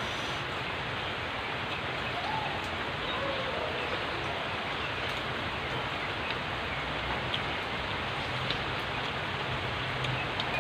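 A steady hiss of even noise, with a few faint ticks over it.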